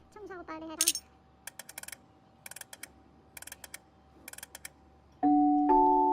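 Four quick runs of sharp clicks like keyboard typing, with short gliding blips at the start; bell-like mallet music begins near the end.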